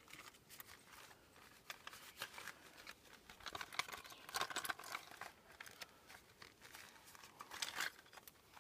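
Light metal clicks and rattles of Allen hex keys being picked through and tried for size in a set screw, irregular and busiest about halfway through and again near the end.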